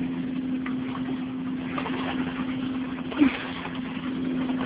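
Creek water running and rippling over rocks, over a steady low hum. A short, sharp sound stands out about three seconds in.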